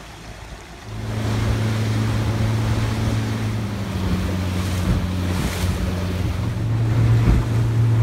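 A Yamaha 60 hp outboard motor running steadily at cruising speed, a loud, even, low hum that starts about a second in, with rushing water from the wake and wind buffeting the microphone.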